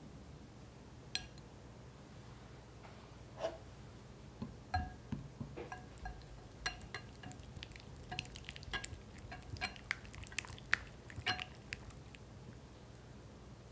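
A utensil clicking and tapping against a bowl, each tap ringing at the same few pitches. The taps are irregular: a few at first, then a dense run through the middle, thinning near the end.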